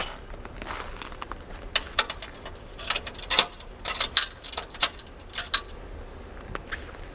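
A run of sharp clicks and light metallic clinks, about a dozen of them between roughly two and six seconds in, over a steady low hum.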